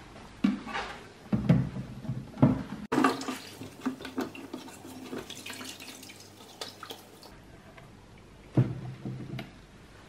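Plastic vacuum dust tank being scrubbed with a cloth in a sink of soapy water: water sloshing and splashing, with occasional knocks of the plastic against the sink.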